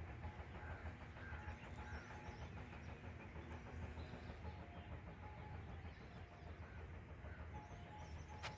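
A bumblebee's buzz that comes and goes, over a steady low rumble, with a few soft bird chirps.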